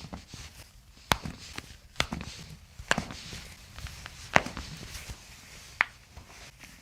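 Five light, sharp knocks or clicks, spaced roughly a second apart and not quite evenly.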